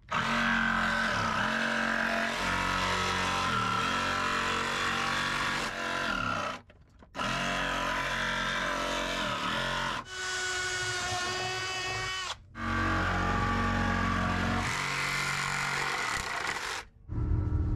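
Corded jigsaw cutting through a black high-density polyethylene bucket, its motor running steadily with the pitch sagging and recovering under load. The cutting stops briefly about three times.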